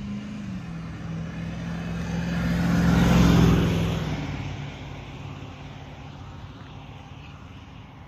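A car driving past, its engine hum and tyre noise swelling to a peak about three seconds in and fading away over the next two seconds.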